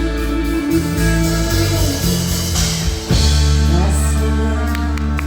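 Background music: a song with singing over guitar and bass.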